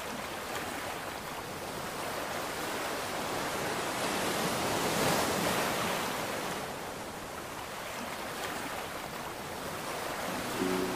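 Sea waves washing onto a shore: a steady rush of surf that swells about five seconds in and then eases off.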